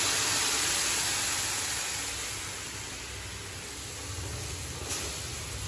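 Boiled peas and potatoes with their cooking water poured from a pressure cooker into hot oil in a kadai, sizzling with a loud, even hiss that slowly dies down. A light clink comes near the end.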